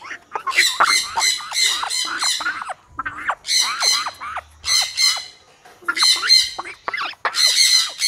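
Young African grey parrots squawking in about six bouts of rapid calls, each bout up to about a second long, with short pauses between.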